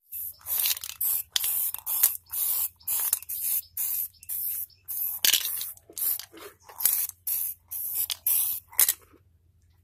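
Aerosol spray-paint can sprayed in many short hissing bursts, about two a second, stopping about nine seconds in.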